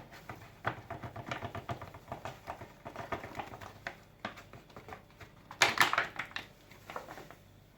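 Rapid, irregular clicking and tapping of kitchen utensils against a bowl while batter is handled, with a louder clatter of knocks about six seconds in.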